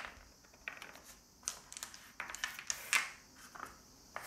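A handful of faint, irregular clicks of dice being picked up and handled on a tabletop between rolls.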